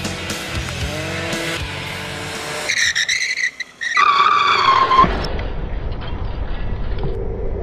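Music, then a scooter's tyres screeching in a skid: a first screech about three seconds in, a brief gap, then a louder, high, steady screech until about five seconds in, followed by a low rumble.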